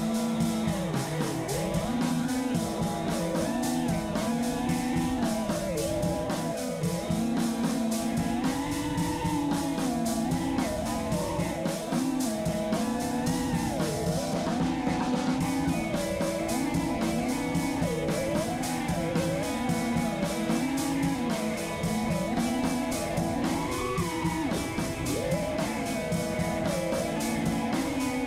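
Rock music with guitar and a steady beat, playing throughout.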